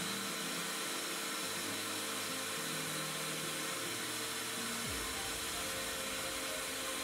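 A Workbee CNC router's 1.5 kW water-cooled spindle milling MDF with an end mill: a steady whine and cutting noise, with a low tone underneath that shifts a few times and slides down in pitch about five seconds in.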